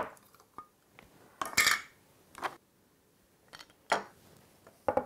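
Metal paint tin and its lid being handled on a wooden workbench beside a plastic roller tray: a string of separate clinks and knocks, the loudest about a second and a half in.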